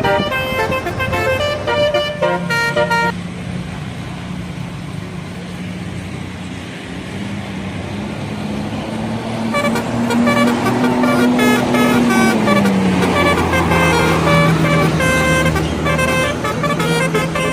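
Bus telolet horn playing quick multi-note tunes, jumping from pitch to pitch, in two spells: for the first three seconds, then again from a little past halfway to the end. Between and beneath them a low engine note rises slowly, then drops about three-quarters of the way through.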